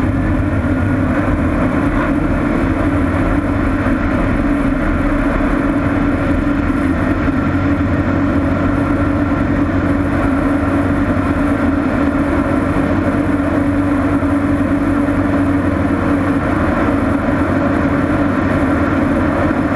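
Light experimental aircraft's engine and propeller running steadily at takeoff power through the takeoff roll and climb-out, the pitch holding level throughout.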